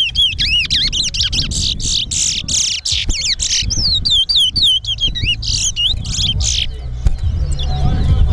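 Towa-towa (large-billed seed finch) singing competition song: a fast run of rising-and-falling whistled notes that stops about a second and a half before the end. A low rumble of background noise lies beneath.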